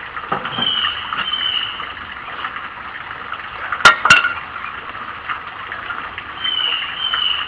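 A small glass jar clinking twice, two sharp clicks about a quarter second apart, midway through. In the background a bird sings short falling whistled notes near the start and again near the end.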